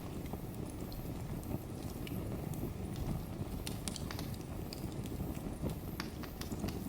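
Wood fire in a fireplace crackling: irregular sharp pops and snaps over a steady low rush.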